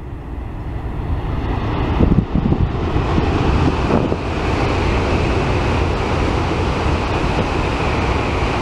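N700 series Tōkaidō Shinkansen train passing at speed: a rushing noise that builds over the first few seconds and then holds steady, with wind buffeting the microphone.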